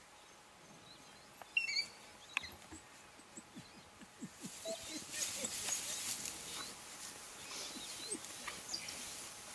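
African wild dogs giving short, high-pitched chirping and squeaking calls while confronting a spotted hyena, with one louder squeal about a second and a half in. From about halfway the calls come thicker over a hiss of dry grass as the pack moves.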